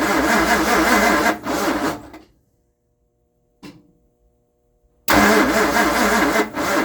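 Starter cranking the 1960 Ford's tri-power 360 FE V8 in two attempts, the first stopping about two seconds in and the second starting about five seconds in. The engine turns over without catching: it won't start, with fuel leaking from the carburetors.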